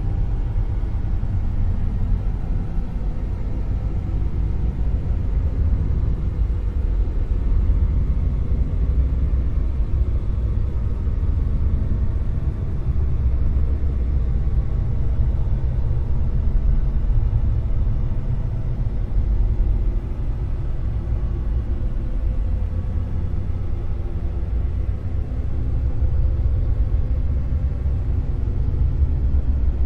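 A dark noise-wave drone: a steady, deep rumbling noise with most of its weight in the bass. It swells and eases slowly, every several seconds, like waves.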